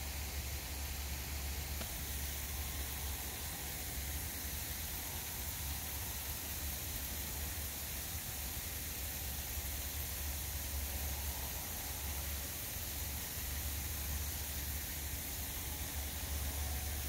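Steady background noise: an even hiss over a constant low hum, with no distinct events.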